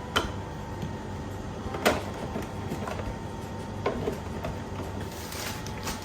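Groceries and containers being handled and set down while a fridge is restocked after cleaning: three sharp knocks roughly two seconds apart, then a brief rustle near the end.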